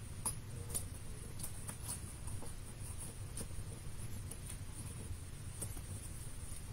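Paper die-cut flowers and card being handled and pressed down by hand, giving faint scattered clicks and rustles over a low steady hum.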